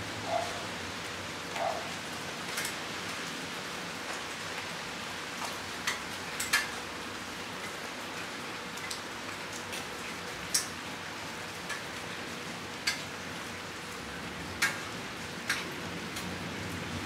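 Steady rain shower hissing, with single drops ticking sharply close by at irregular intervals, roughly every second or two.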